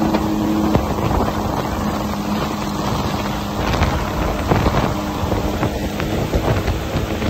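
Towing watercraft's engine running at a steady hum at speed, under loud rushing water from the churning wake and wind buffeting the microphone.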